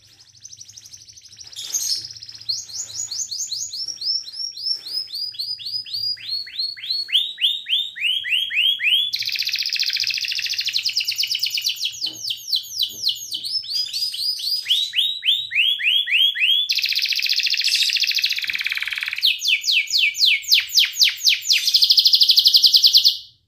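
Canary singing a long, unbroken song: runs of rapidly repeated notes, one run stepping gradually lower in pitch, alternating with dense, fast trills. The song stops abruptly near the end.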